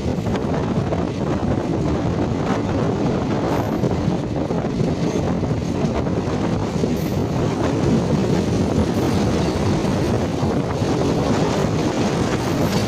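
Passenger train running at speed, heard from an open window of the coach: a steady rush of wheel and rail noise mixed with wind.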